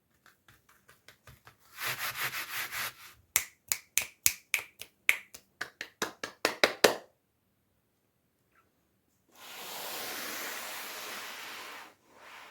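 Toy packaging being handled and opened by hand. Light taps and a short crinkle come first, then a quick run of sharp clicks and snaps. After a pause there is a steady rustle lasting about three seconds.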